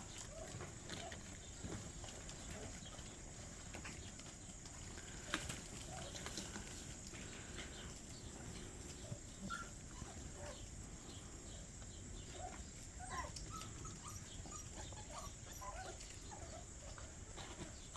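Young puppies giving short, soft squeaks and whimpers here and there, more often in the second half, over the steady high drone of crickets.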